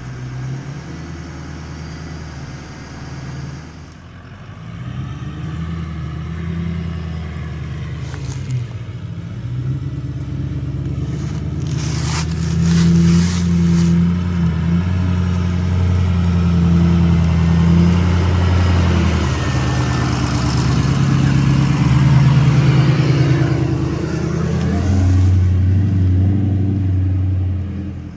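Ford F-250's Power Stroke turbo-diesel V8 pulling under load, its engine note rising and falling with the throttle. A cluster of knocks and bangs comes about twelve seconds in.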